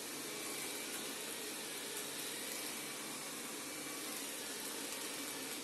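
Roborock S6 MaxV robot vacuum running with a steady hiss and a faint high tone, pushing against a bath mat that it cannot climb over.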